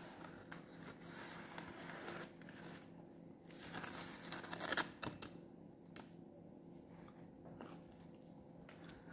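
Flaky baked pastry of a chocolate-filled turnover crackling faintly as it is pulled apart by hand, a little louder about halfway through, then a soft bite near the end.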